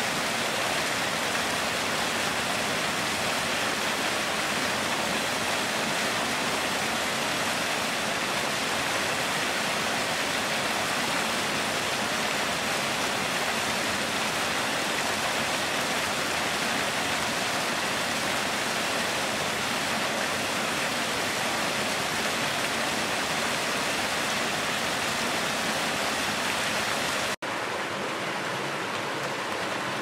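Mountain stream water rushing and splashing over rocks in a small cascade, a steady even rush. After a brief break near the end it gives way to another stretch of rapids, slightly quieter and duller.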